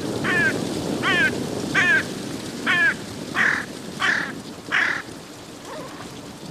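Yellow-legged gulls calling, a string of about seven loud calls, one every 0.7 seconds or so. The later calls are harsher. A rushing noise runs underneath and is strongest at the start.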